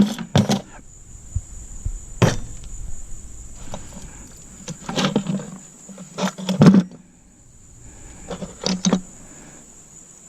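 Small metal scrap parts clinking and knocking as they are handled and sorted, in several separate clatters, some in quick pairs. A cricket chirps steadily throughout.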